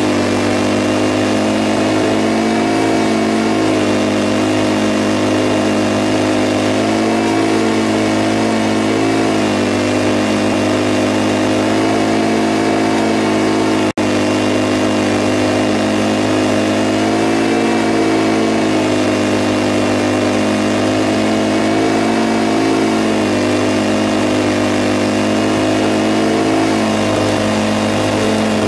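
Engine of a Scag V-Ride stand-on commercial mower running steadily at mowing speed, its pitch wavering slightly now and then. There is a momentary dropout about halfway through.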